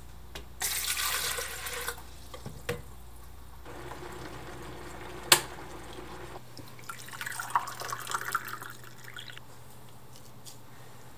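Water poured from a mug into an electric kettle, splashing for about a second and a half. A single sharp click comes near the middle, then more water is poured into a ceramic mug for a couple of seconds.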